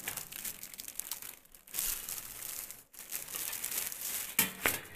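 Thin clear plastic bag crinkling and rustling as a stainless steel dish rack is pushed back into it. The sound pauses briefly a couple of times, with a few sharper crackles near the end.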